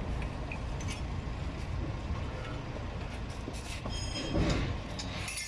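Metal scraping and light clinks from hands working at a rear disc brake caliper and its brake pad, with a brief high metallic squeak about four seconds in.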